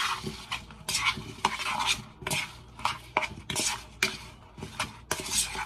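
Metal spoon stirring cut raw potato chunks in a bowl, tossing them in olive oil and seasoning: short scraping strokes, about two a second.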